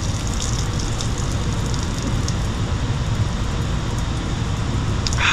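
Liquid spattering steadily onto concrete as it leaks out through holes in a shoe that is being drunk from.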